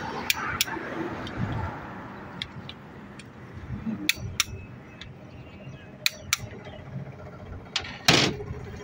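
Long-handled wrench on an extension bar tightening bolts on an engine block with the crankshaft fitted: sharp metallic clicks, several of them in pairs, over a steady workshop hum. A louder, longer clatter comes near the end.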